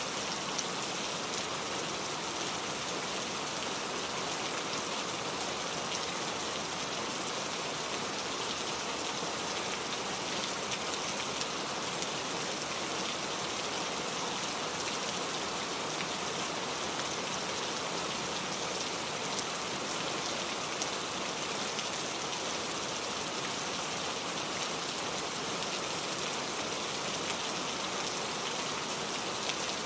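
Steady rain falling: an even hiss with a fine patter of individual drops.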